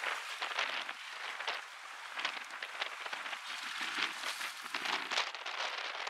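Irregular splashing and hissing of water, uneven little spatters with no steady rhythm.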